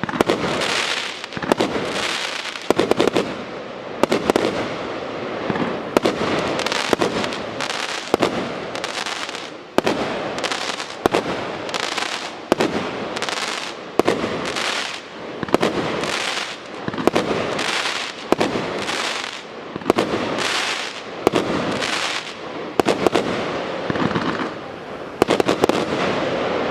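A 36-shot, 1-inch (26 mm) firework cake firing shot after shot, about once a second: each a sharp report followed by a fading hiss of noise.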